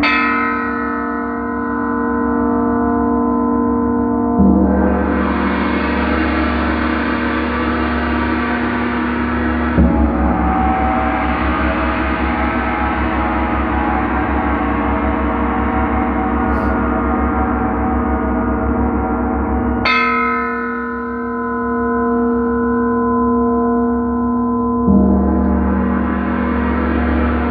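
Large Paiste gongs struck with a soft mallet about five times, each stroke swelling into long sustained ringing that overlaps the last. Strokes at the start and about 20 seconds in bring out clear steady tones, while those at about 5, 10 and 25 seconds add a deeper, denser wash; the sound never dies away.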